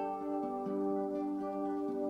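Instrumental background music: plucked string notes over held tones.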